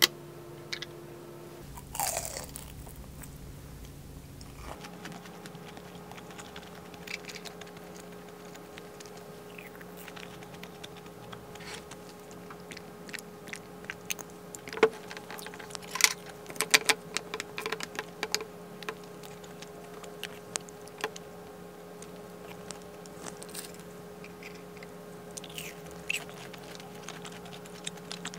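Close-up eating sounds: chewing and biting on glutinous rice cake, with sharp clicks and clinks of a fork and spoon against the dishes and glass, most frequent in the middle of the stretch.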